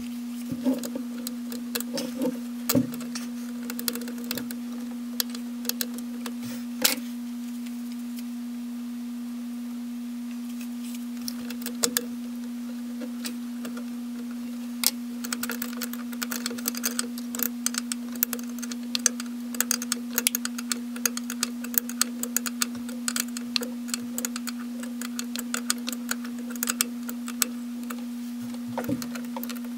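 Small metal clicks and taps of a wrench on the brake line flare nuts as the lines are threaded into a new brake master cylinder, scattered at first, then coming thick and fast in the second half. A steady hum runs underneath.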